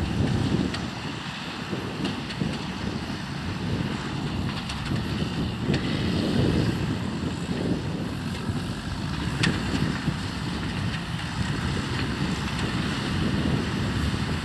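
New Holland TM165 tractor's six-cylinder diesel running steadily under load, pulling a twin-row sugar beet harvester, with a few sharp knocks from the working machinery.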